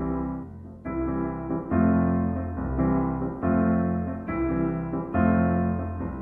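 Background music: a piano or electric-piano part playing sustained chords that change about every second, with no singing.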